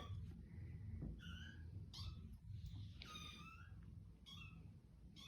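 Kitten meowing repeatedly, about five short high mews with a longer one in the middle, faint and insistent.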